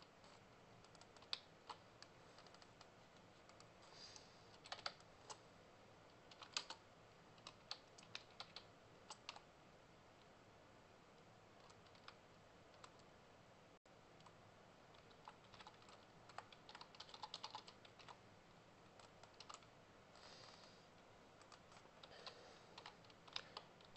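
Faint typing on a computer keyboard: irregular runs of keystroke clicks, with a lull of a few seconds in the middle.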